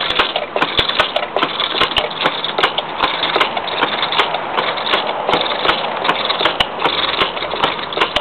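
Home-built wooden treadle lathe running, with a hand-held turning tool scraping and shaving a spinning wooden bowl blank. The cutting is a continuous rough scraping, broken by many sharp clicks.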